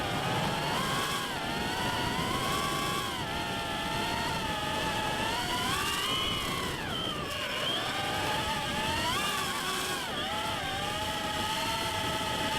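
Darwin FPV CineApe 35 FPV drone's motors and propellers whining in flight, the pitch rising and falling with the throttle.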